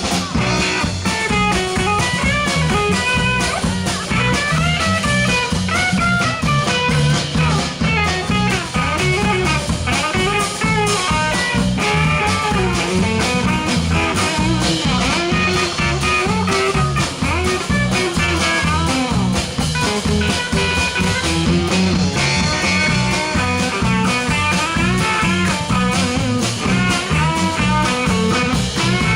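A live blues band playing an instrumental passage, with a bending lead line over bass and drums.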